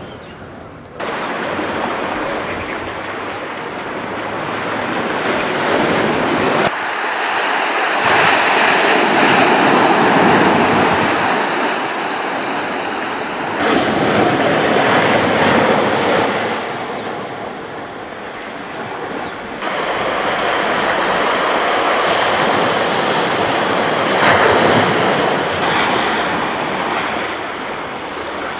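Ocean surf washing on a rocky shore: a rushing of waves that swells and ebbs every few seconds, with a few sudden jumps in level.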